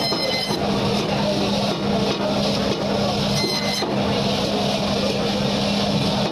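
Band saw running with a steady hum while its blade cuts through sea catfish, slicing the fish into steaks.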